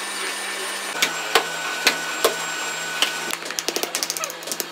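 Hand hammer striking cast-iron pieces in a pile: a few sharp metallic blows about half a second apart, then a quicker run of lighter taps. A steady hum runs underneath.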